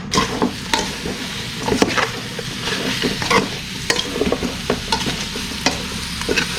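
Sliced pork and spices sizzling in a hot pan while being stir-fried, the spatula knocking and scraping against the pan many times at an uneven pace. The sizzle starts abruptly at the very beginning.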